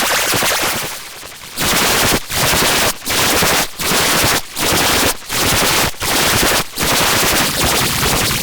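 Loud, harsh electronic noise of rapid-fire crackling from an edited logo sound effect, coming in a long first blast and then in regular blasts about every three-quarters of a second with short breaks between them.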